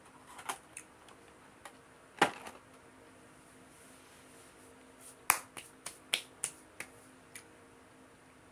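A string of sharp clicks and snaps over a quiet room hum: a few scattered ones, the loudest about two seconds in, then a quick run of about seven in the second half.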